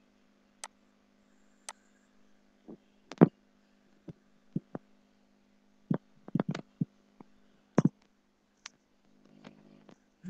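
Computer mouse clicks and other sharp taps and knocks at irregular intervals, the loudest about three seconds in, over a faint steady low hum.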